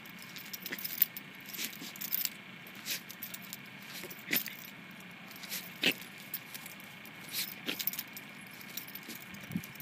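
Norwich terrier digging at a mole hole: paws scraping at loose soil in irregular short scratches, with a light jingle of metal collar tags.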